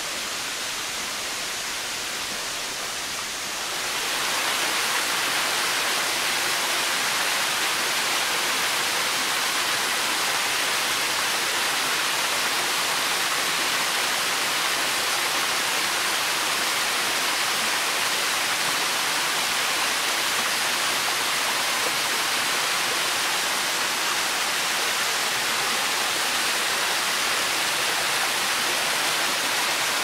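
Waterfall rushing: a steady, full roar of falling water that grows louder and brighter about four seconds in, then holds steady.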